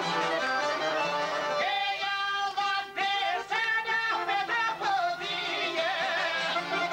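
Albanian folk music on long-necked lutes of the çifteli family, with a melody of long held, wavering notes through the middle.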